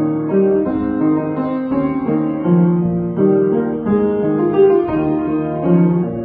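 Piano played solo: a continuous piece of held chords and melody notes in the middle register, changing every half-second or so.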